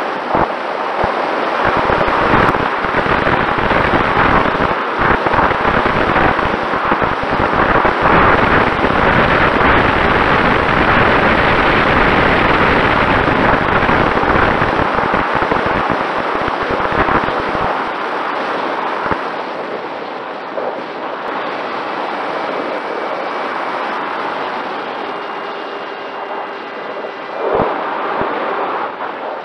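Wind rushing and buffeting over the microphone of a camera riding on a Mini Talon RC plane in flight. Underneath is a faint steady whine from its electric motor and propeller. The rush eases off after about eighteen seconds.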